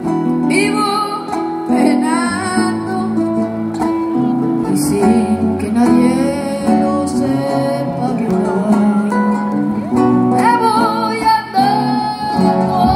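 Live band music through a PA: acoustic guitars strumming chords under a boy's singing voice.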